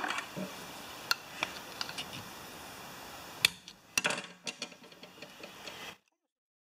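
Small clicks and taps of a Tecumseh mower carburetor and a screwdriver being handled on a workbench as the carburetor is taken apart. The sharpest knock comes about three and a half seconds in, followed by a quick run of lighter clicks, then the sound cuts out abruptly.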